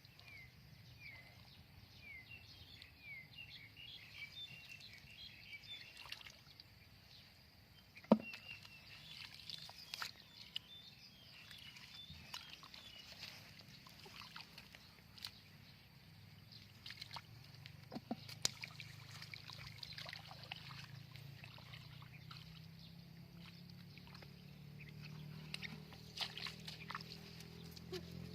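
Water sloshing and splashing in a flooded field, with a few sharp knocks, the loudest about 8 seconds in. Clusters of faint high chirping come in the first half, and a low steady hum builds in the second half.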